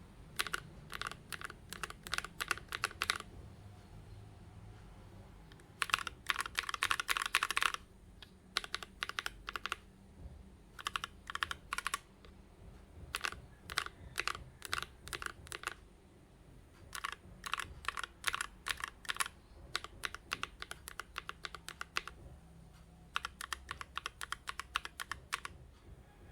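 Typing on a mechanical keyboard with KTT Kang White v3 linear switches in an aluminium-cased Idobao ID80. The keys are clacking in quick runs of a second or three, broken by short pauses, with the fastest and loudest run about six seconds in.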